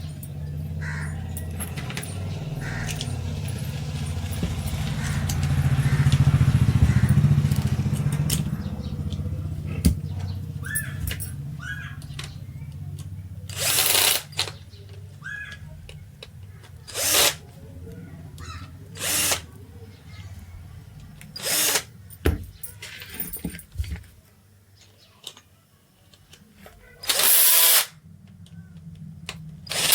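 A power tool running with a low steady hum that swells and then fades over the first dozen seconds, followed by about six short, loud bursts of half a second to a second each.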